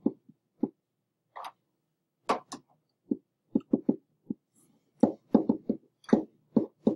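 A stylus tapping and knocking against a writing screen during handwriting: about fifteen short, irregular taps that come more thickly in the last few seconds.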